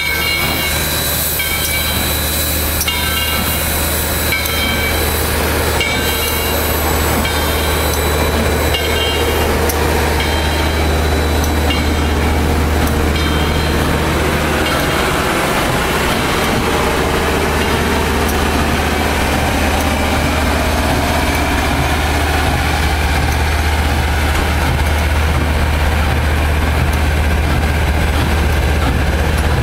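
Steam locomotive #630, a 2-8-0, pulling its train slowly away over a steady low rumble. A regular ringing about once a second, typical of the locomotive bell on departure, fades out about halfway through, and a rising rush of wheels on rail follows as the passenger cars roll past.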